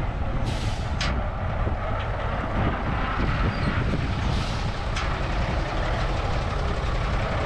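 Kaiser 6x6 five-ton military truck's engine running as it drives through shallow water, a steady low rumble, with two short hisses about half a second in and again about four and a half seconds in.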